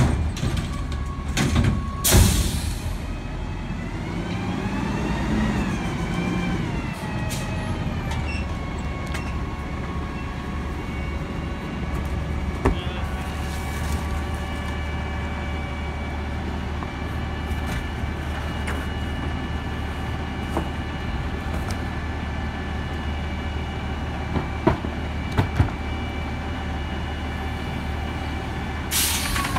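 Autocar ACX garbage truck running as it pulls up to the curb: a sharp burst of air about two seconds in, then the engine note rising and falling before holding steady with a high whine; another sharp burst near the end.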